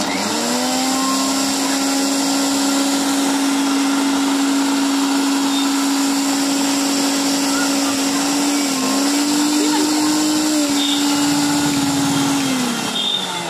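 Small high-speed electric motor switched on and running with a steady whine and hiss. Its pitch dips briefly about nine seconds in, and it winds down shortly before the end.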